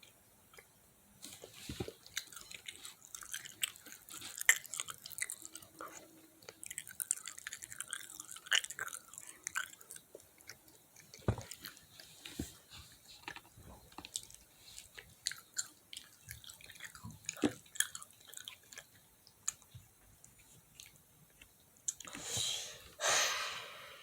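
Fried chicken being chewed close to the microphone: irregular wet, crackly bites and mouth sounds. Near the end come two short, louder rushing sounds.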